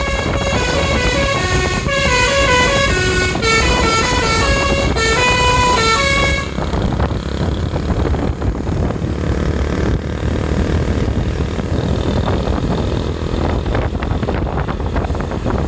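A bus's AL ZIFA telolet horn, a multi-tone air horn, playing a quick stepping melody of bright tones that cuts off about six seconds in. After it, a steady low rumble of engine and road noise.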